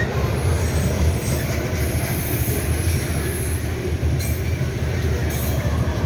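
Coal train wagons rolling past, a steady low rumble of steel wheels on the rails.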